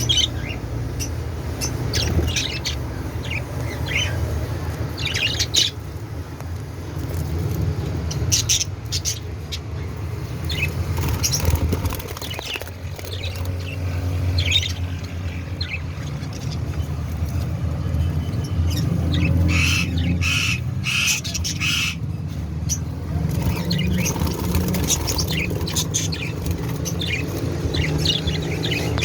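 A colony of budgerigars chirping and squawking in short, scattered calls, busier near the end, over a steady low rumble.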